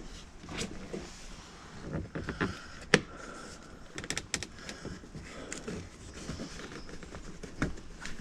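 Plastic interior trim in a pickup cab being worked back into place by hand: scattered clicks, taps and scrapes, with the sharpest knock about three seconds in.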